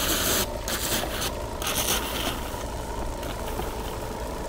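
Electric washdown pump running with a steady hum, fed only a trickle of water from a garden hose at its intake so little water comes out. A few short hissing bursts come in the first two seconds.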